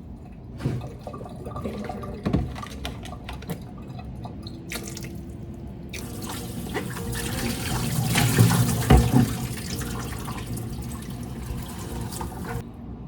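Kitchen tap running into the sink, with water splashing and small clinks of things being handled under it. The water grows louder about halfway through, then eases off.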